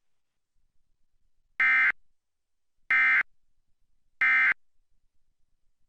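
Emergency Alert System End-of-Message data tones: three short identical digital bursts, each about a third of a second long and about a second and a half apart. This is the signal that closes an EAS test.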